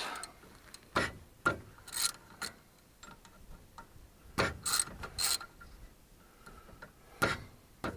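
Ratchet wrench clicking in short irregular spurts, with metallic clinks, as the bolts holding a full-time manual front hub are loosened and backed out.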